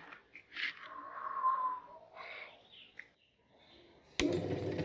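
A plastic wall switch clicks once near the end and a steady background noise begins right after it. This is the power being switched on for an electric meat grinder. Earlier, a brief faint sound with a falling whistle-like tone is heard about a second in.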